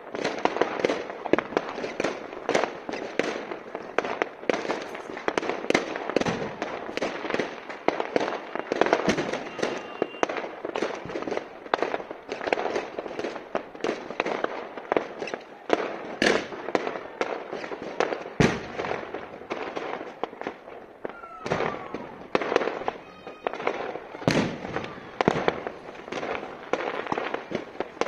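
Fireworks and firecrackers going off all over a town: a dense, continuous crackle of pops and bangs, with a few louder single bangs standing out.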